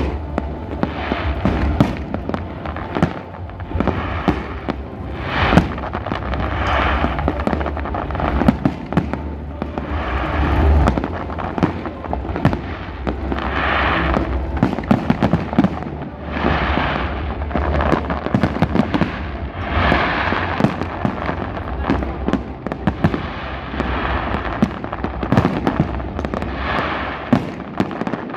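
Aerial fireworks display: a continuous barrage of shell bursts, with sharp bangs and crackling that swells every few seconds.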